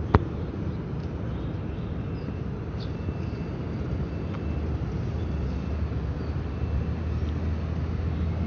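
Low steady engine hum that grows stronger about halfway through, over outdoor background noise.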